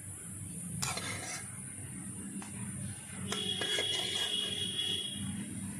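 Metal spatula scraping and knocking against a wok as the cooked dry fish is scraped out onto a plate. A sharp knock about a second in, then a few seconds of scraping with a thin, high metallic squeal, over a steady low hum.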